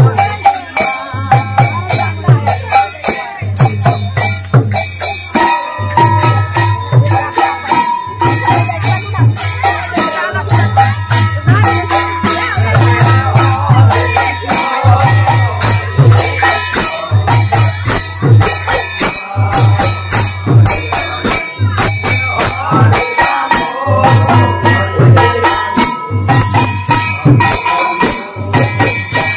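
Harinam kirtan: a khol, the Bengali double-headed clay drum, beaten in a quick, steady rhythm of deep bass strokes, over the constant jingle of kartal hand cymbals, with voices chanting along.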